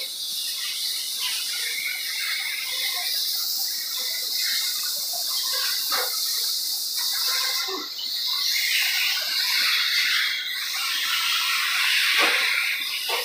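1/8-scale electric RC buggies racing: a steady high-pitched whine and hiss from the motors, drivetrains and tyres, growing louder past the middle, with a few short knocks.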